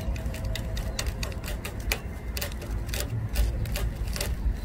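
Wooden toothpick tapping and scraping on a thin sheet of hard dalgona sugar candy, a quick irregular run of small sharp clicks, several a second, as it chips along the stamped heart outline.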